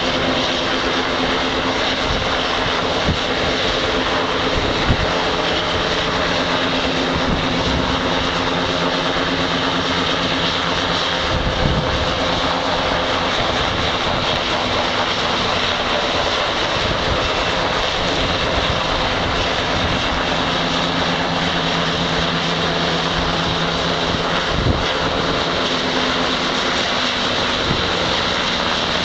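Navy H-60 Seahawk helicopter hovering close by: steady loud rotor and twin turbine engine noise, with a constant low hum underneath.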